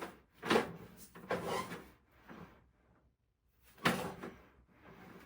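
Several sharp knocks and bumps, with quieter handling noise between them. The loudest come about half a second in and just before four seconds in.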